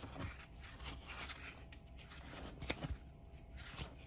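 Paper pages of a paperback book being turned by hand: several short rustles and flicks, the sharpest a little under three seconds in.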